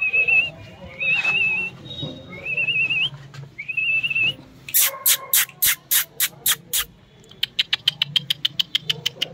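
A person whistles four short warbling notes, then makes a run of about nine sharp, loud clicks at roughly four a second, followed by a quicker patter of lighter clicks.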